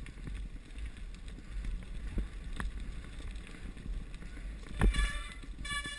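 Mountain bike rattling and rumbling over a rocky, stone-paved singletrack, with wind buffeting the camera microphone. A hard knock about five seconds in, then a brief high-pitched squeal near the end.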